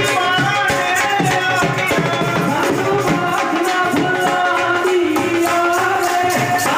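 Group of voices singing a devotional hymn in long held notes, over a steady rhythmic beat of jingling hand percussion.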